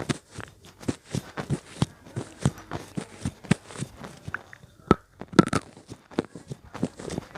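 Slate pencil being chewed close to the microphone: a steady run of crunches about three a second, with a short pause a little past halfway followed by a sharp snap and a louder crunch.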